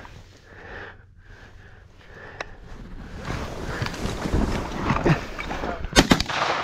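Wind noise and rustling that build up as hunters sit up from their layout blinds, then two or three shotgun shots in quick succession near the end.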